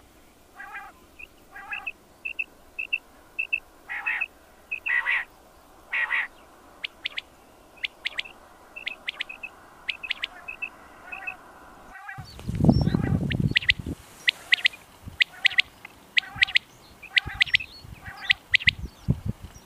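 Quail calling over and over in short, sharp high notes, some of them quick runs of the same note. About two-thirds of the way through, a loud low rumble lasting a second or two drowns the low end while the calls carry on.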